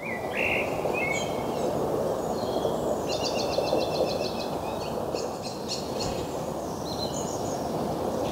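Small songbirds chirping and singing, with a rapid run of repeated high notes about three seconds in, over a steady rushing background noise.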